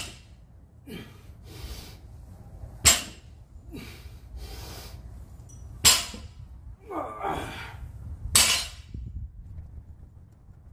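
Barbell loaded with rubber bumper plates set down hard on a concrete floor between deadlift reps: four sharp clanks about every three seconds. Heavy breathing between the reps, with a short strained vocal sound before the last one.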